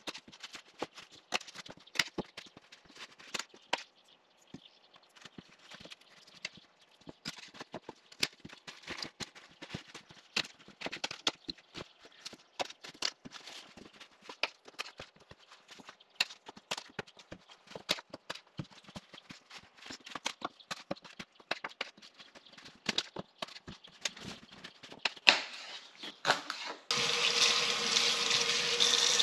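Kitchen knife chopping rhubarb stalks on a cutting board: irregular sharp knocks, a few a second. About 27 seconds in, a tap comes on suddenly and water runs steadily into a sink.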